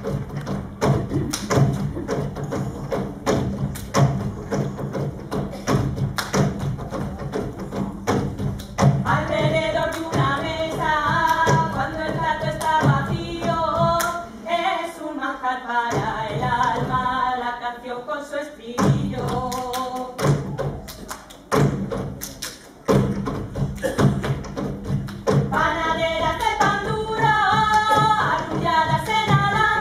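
Live folk music with a steady thudding percussion beat; a voice starts singing about a third of the way in, breaks off twice, and sings again near the end.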